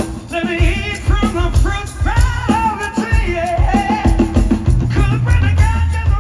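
Hard rock band playing live: a lead singer holds long notes with a wide vibrato over kick drum, cymbals and bass guitar.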